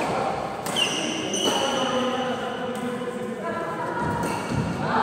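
Sounds of play in an indoor badminton hall: a sharp knock about a second in, thin high squeaks of shoes on the court floor, and faint voices, all echoing in the large hall.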